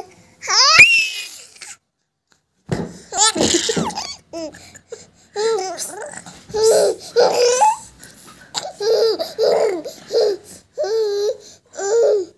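A baby laughing in a string of short, high-pitched bursts, opening with a loud rising squeal and pausing briefly about two seconds in.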